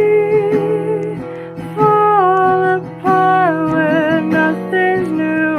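A slow song with acoustic guitar, with a singer holding long notes that slide between pitches.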